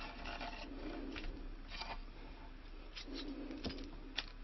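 Wooden wedge blocks being pulled free of a stick dulcimer's headstock and set down: a few faint, light knocks and scrapes of wood on wood.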